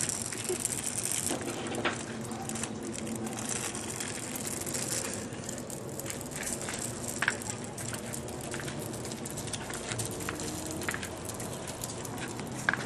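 Plastic wheels of a small toy stroller rolling and rattling over a concrete sidewalk: a steady rough noise with a few sharp clicks and knocks.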